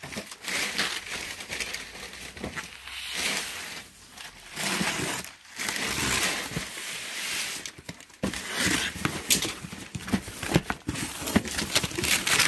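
Cardboard box being opened with a box cutter: scraping and rustling of cardboard and packing tape as it is slit and the flaps are pulled back. Denser crinkling and crackling of plastic-wrapped packing comes in the second half.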